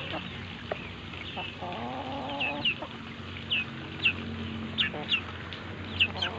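Chickens calling: a string of short, high, falling peeps, about one every half second to second, with a lower wavering cluck about a second and a half in.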